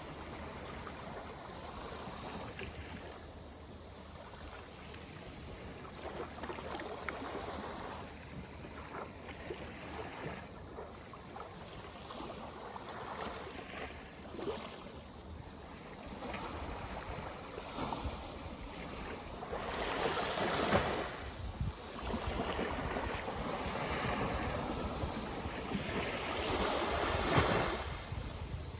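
Sea waves washing in and out at the shoreline, a steady wash of surf with two louder breaking waves, one about two-thirds of the way through and one near the end.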